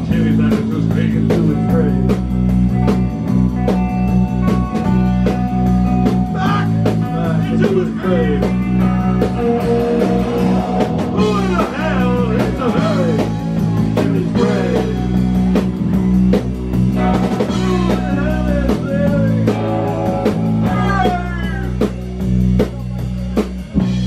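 Live rock band playing: electric guitar, bass guitar and drum kit with a steady beat.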